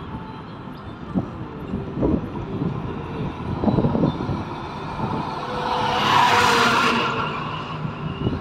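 Road and wind noise from a moving car, with uneven low buffeting. About six seconds in, an oncoming truck passes close by: a rising, then fading rush of noise.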